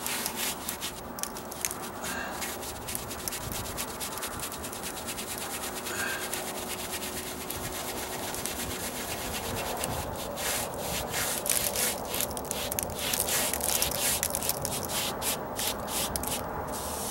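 Paintbrush scrubbing Dryvit stucco patch material onto a textured stucco column in many short strokes, the strokes growing more distinct and a little louder in the second half.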